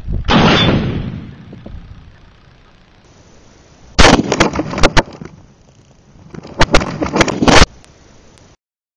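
A .50 BMG Serbu BFG-50A rifle fires an armor-piercing incendiary round: one heavy boom just after the start that rolls away over about two seconds. Around four seconds in and again near seven seconds come clusters of sharp cracks and clatter as rounds strike the stacked cinder blocks.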